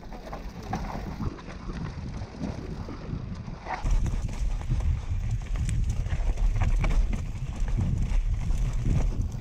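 Mountain bike clattering and rattling as it rolls fast over roots and rocks, tyres rumbling on dirt, with a rapid run of small knocks. The rumble gets heavier about four seconds in. The trail is rain-washed, with roots and stones laid bare.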